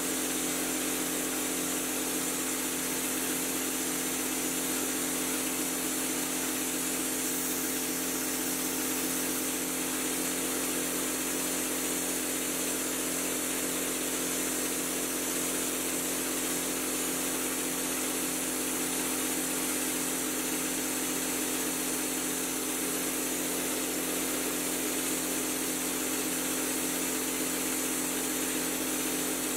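A drywall texture-spraying rig running steadily: a motor's even hum with a constant hiss of air.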